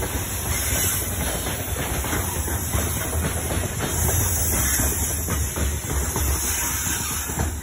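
Covered hopper wagons of a freight train rolling past close by: steel wheels clattering on the rails over a steady rumble and hiss.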